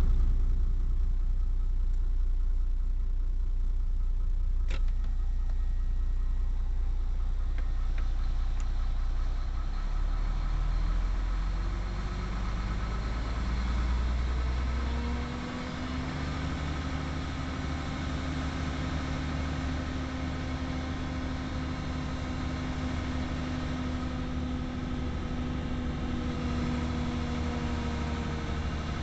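Cummins M11 straight-six diesel in an ERF truck idling, heard from inside the cab. About halfway through, the engine's note shifts up a little and settles at a steady, slightly quieter hum. A single click sounds a little under five seconds in.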